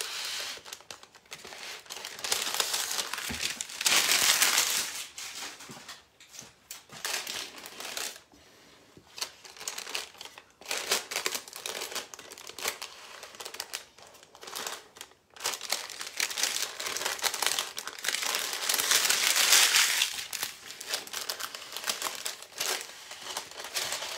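A paper sheet under a cake crinkling and rustling in several bursts as it is handled and pulled away by hand, with quieter gaps between.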